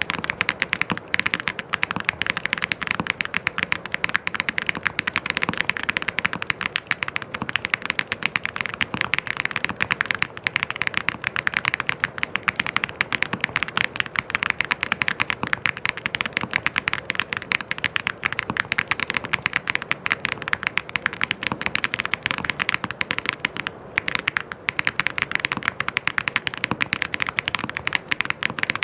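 Fast, continuous typing on a mechanical keyboard: a dense stream of key clicks, with a brief pause about 24 seconds in.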